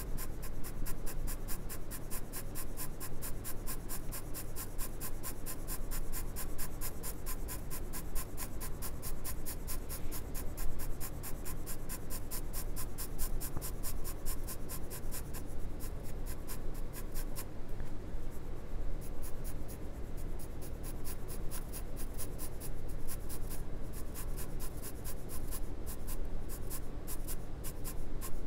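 Graphite pencil scratching on drawing paper in a rapid, even run of short strokes, laying down shading.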